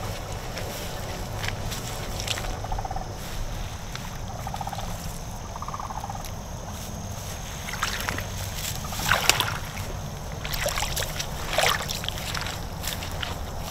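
Footsteps wading and splashing through shallow marsh water and wet grass, with the loudest splashy steps about eight to nine seconds in and again near eleven to twelve seconds, over a steady low rumble of wind on the microphone.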